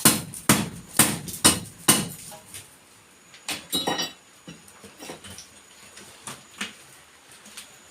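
Sharp knocks, about two a second for the first two seconds, then a brief clink with a short ring and fainter scattered taps.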